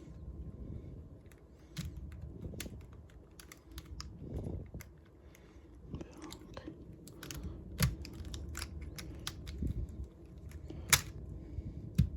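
Irregular small plastic clicks and taps of 3x3 Rubik's cube pieces being handled and wiggled into place during reassembly, with one sharper snap near the end.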